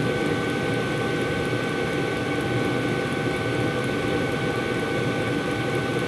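Diesel heater running steadily: an even noise with a constant whine over it.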